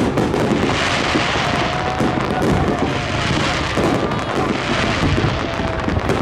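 Fireworks display, with shells bursting in a continuous barrage of booms and crackling.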